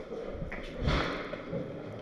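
A dull thump about a second in, over faint rustling.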